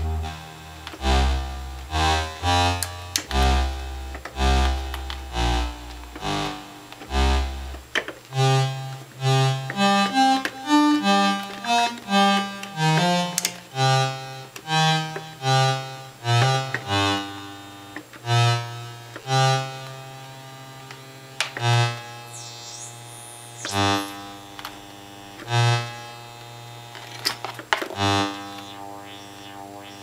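Doepfer Dark Energy single-oscillator analog synthesizer playing a run of single notes, about one or two a second. Deep bass notes come for the first few seconds, then higher notes. About two-thirds of the way in the filter sweeps up and back down.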